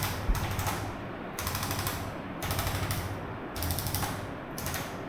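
Mechanical ratcheting: about six short bursts of rapid clicking, each around half a second long, separated by brief pauses.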